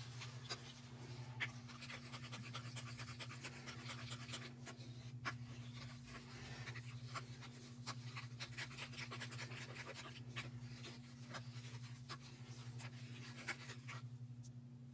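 Wooden craft stick stirring and scraping thick acrylic paint around a plastic cup: soft, irregular scraping and ticking that thins out shortly before the end, over a steady low hum.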